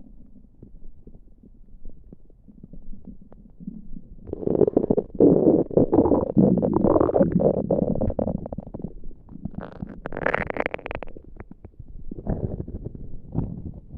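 Human stomach gurgling and rumbling on its own, with no pressing on the belly. Faint low rumbles give way about four seconds in to a long, loud bout of bubbly gurgles, followed by a shorter, higher gurgle and a few small ones near the end.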